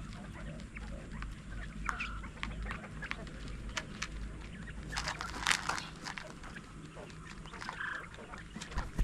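Poultry calling: a few short calls among many small clicks and taps, with a louder burst of calling about five and a half seconds in.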